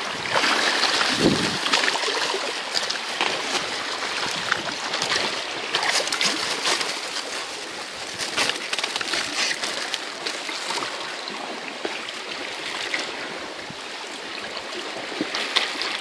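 Seawater washing and trickling among rocks and pebbles, a steady rushing hiss, with scattered sharp crackles and clicks that come thickest in the middle.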